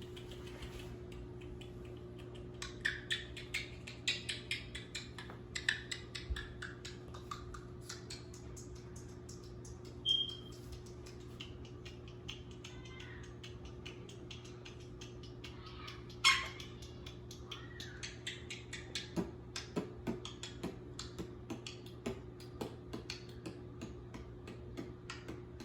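Quaker parrot giving a short high chirp about ten seconds in and a louder sharp squawk a few seconds later, amid many small irregular clicks over a steady low hum.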